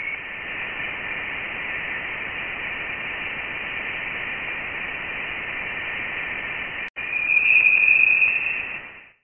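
Sonified Voyager 1 plasma-wave recording from the edge of the heliosphere: a steady static hiss with a thin high whistling tone. It drops out for an instant about seven seconds in, returns as a louder high band, then fades out near the end.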